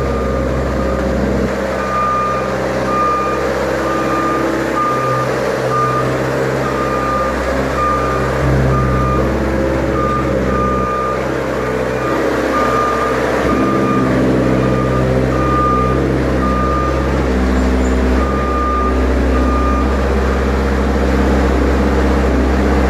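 Delivery truck backing up, its reversing alarm beeping in a steady series over the engine's running rumble.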